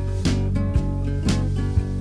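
Background music with a steady beat, about two strikes a second.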